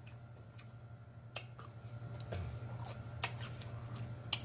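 Close-miked eating of fried chicken wings: quiet chewing and mouth noises with three sharp clicks spread through the few seconds, over a steady low hum.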